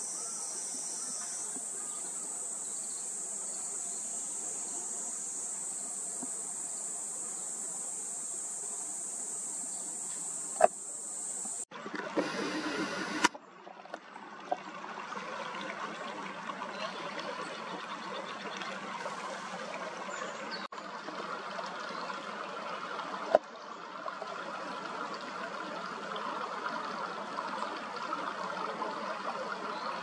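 Cicadas buzzing steadily and high-pitched. About twelve seconds in, this gives way to the even rushing of shallow stream water over rocks. A few sharp clicks stand out.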